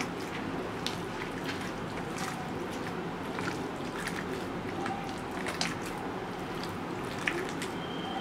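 A hand squeezing and kneading raw minced chicken mixed with egg white and cornflour in a bowl: soft wet squelches and small ticks over a steady background hiss.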